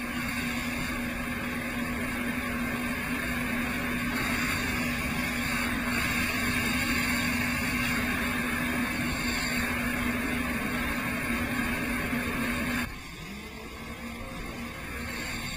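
Personal watercraft (jet ski) engine running steadily at speed under a wide rush of wind and water noise. About 13 seconds in, the engine note drops away suddenly and everything gets quieter.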